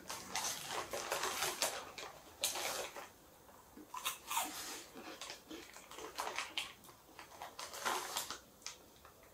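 Crunching and chewing of crunchy TGI Fridays mac and cheese Party Bites snacks: irregular crackly crunches, thickest in the first three seconds, then in short clusters about four, six and eight seconds in. The snack bag rustles along with the first crunches.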